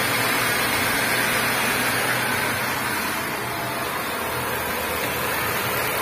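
Nissan Grand Livina's freshly overhauled four-cylinder petrol engine idling steadily, running smooth with no knocking.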